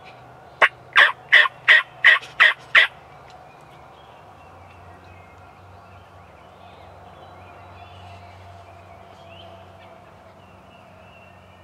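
A turkey yelping: seven loud, raspy yelps in quick even succession, about three a second, in the first few seconds.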